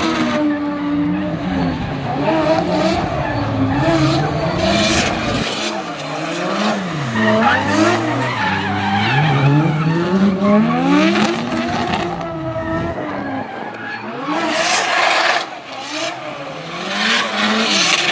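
Two drift cars' engines revving up and down over and over as they slide sideways in tandem, with tyre squeal and skidding noise that swells loudest near the end.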